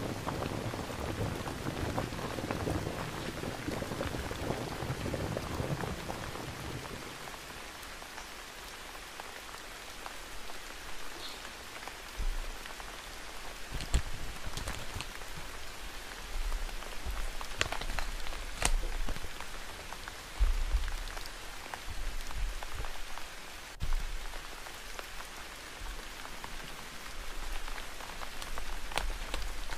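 Steady rain falling, fuller for the first several seconds and then lighter. A few sharp clicks and low bumps come through in the second half.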